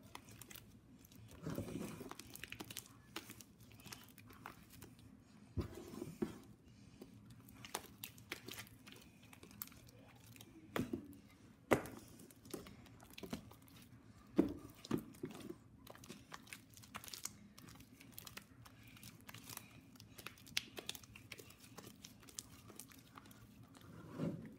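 Clear glue slime being stirred and kneaded by hand while the activator works in, making faint, irregular sticky crackles and squelches.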